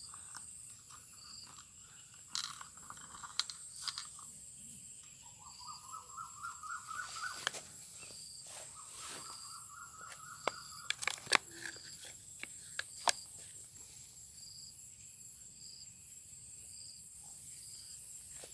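Insects drone steadily with a short chirp about once a second. A trilling call that rises in pitch sounds twice in the middle, and sharp crunches and clicks from hands at work are scattered throughout.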